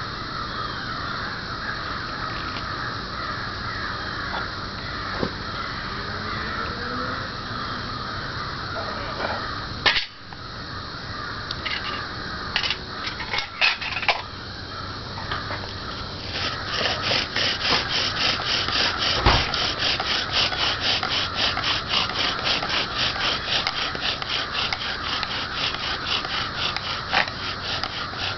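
Bow drill worked from about halfway in: the wooden spindle turned back and forth against the fireboard in a steady, rhythmic rasping, about three strokes a second, to raise an ember by friction. Before that, a few scattered knocks and clicks.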